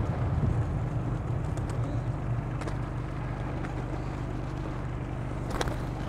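Steady low mechanical hum, with a brief burst of pigeon wing flaps near the end.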